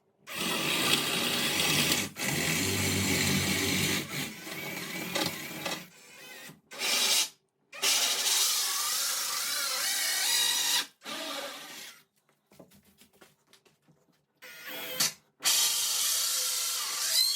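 Power drill boring holes through a wooden door for a round handle and its latch. It runs in several bursts of a few seconds each, stopping and starting between them.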